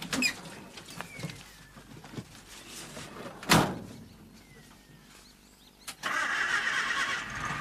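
A van door slams shut about three and a half seconds in. Near the end the van's engine starts and keeps running steadily.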